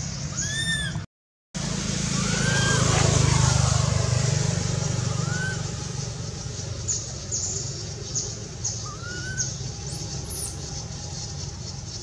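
A motor vehicle passes, its engine hum swelling to a peak a few seconds in and then fading away. Birds give short rising-and-falling chirps several times. The sound cuts out briefly about a second in.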